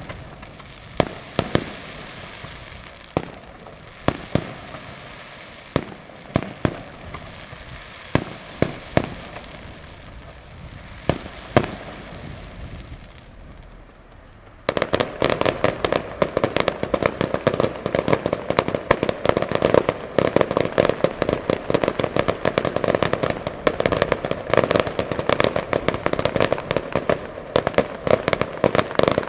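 Aerial fireworks display: shells bursting with sharp bangs about once a second over a crackling hiss, then, about halfway through, a sudden switch to a dense, continuous rapid-fire barrage of reports.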